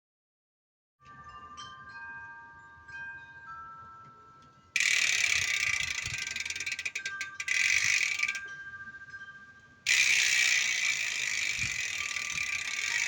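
Bicycle rear freehub's pawls ratcheting in a loud, fast buzz as the wheel spins freely. The buzz starts suddenly about five seconds in, stops for a moment near eight seconds, and starts again about ten seconds in. Before that there are a few faint ringing metallic tones.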